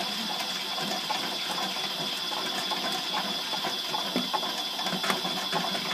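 Toy washing machine and tumble dryer running together: a small motor's steady high whine with irregular clicking of plastic gears.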